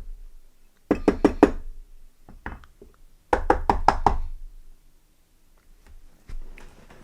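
Rapid knocking of a small metal lighter part against a hard surface, in two short bursts of about seven knocks a second with a few single taps between them, typical of shaking out file shavings.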